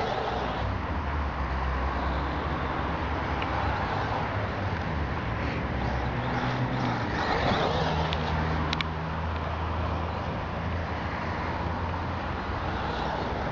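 1:8 scale electric RC short course truck with a Neu 1515/2Y brushless motor driving over grass, its motor and drivetrain running at changing speed with low tones that come and go.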